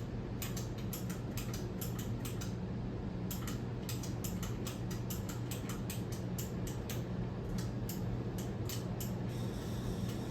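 Ceiling fan controls being worked: a run of sharp, irregular clicks, several a second in places, over a steady low electrical hum, while the fan fails to start.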